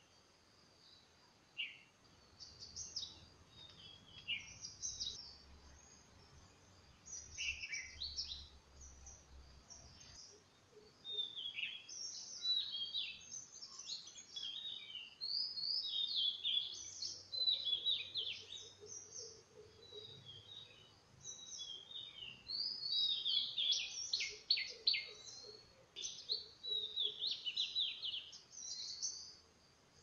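Yellow-billed babblers chattering: short, sharp calls repeated in quick runs, scattered at first and growing busier and louder from about a third of the way in.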